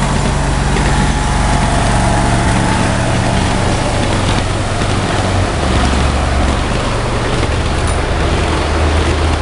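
7½-inch gauge ride-on miniature trains running on their track, giving a steady low motor hum and rumble under an even noise. The low hum shifts to a different note about five and a half seconds in.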